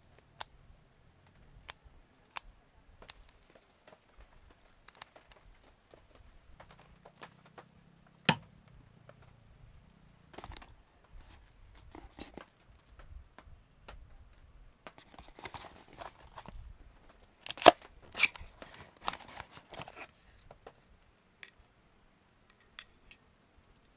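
Scattered small clicks and taps of objects being handled, with a single sharp knock about a third of the way in. Past the middle comes a few seconds of rustling with two loud clicks close together.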